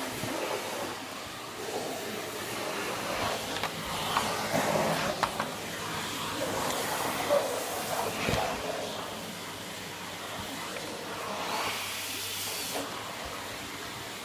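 Vacuum cleaner running steadily, with a few brief knocks.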